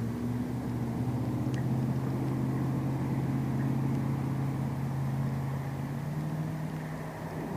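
An engine running steadily: a low hum that holds its pitch, then rises slightly about six seconds in.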